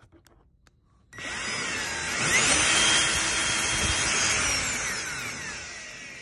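Cordless drill, its trigger held by a zip tie, starting about a second in with a whine that rises as it spins up to high speed. It then winds down in pitch and fades toward the end. It is driving a homemade go-kart tire roller. A few light clicks come before the motor starts.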